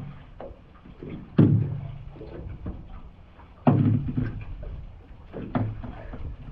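Heavy thuds against a small fishing boat: two loud knocks about two seconds apart, each leaving a short low ring, and a lighter one near the end.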